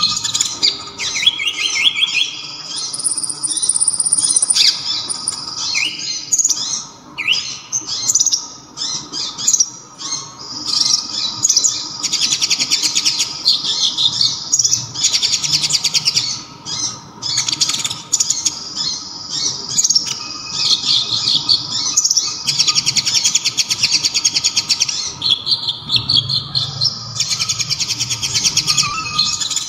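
Kolibri ninja (konin), a sunbird, singing loud, high, rapid trilled phrases and chirps, one after another with only brief pauses.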